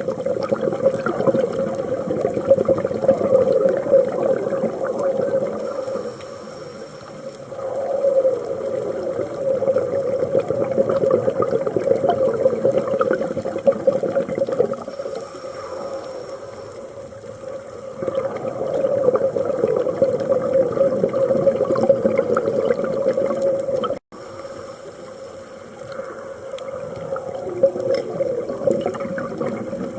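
Scuba diver breathing through a regulator underwater: long exhalations with a rush of bubbling, each several seconds long, broken by short quieter stretches between breaths, about every eight or nine seconds.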